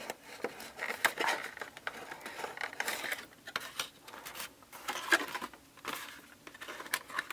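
Cardboard toy box and its plastic insert being handled and pulled apart: faint, irregular rustling, scraping and light clicks as a small figure is worked out of the packaging.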